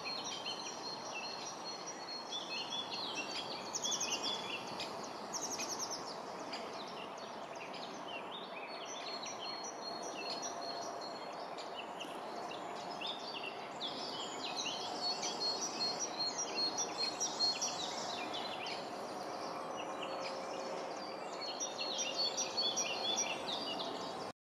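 Small birds chirping and singing in quick, repeated trills throughout, over a steady low rush of outdoor background noise.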